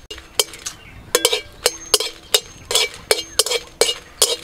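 A flat metal spatula scrapes and knocks against a dry metal kadai while dried red chillies are stirred and roasted without oil. The strokes come quickly, about three a second, and the empty pan rings briefly after each one.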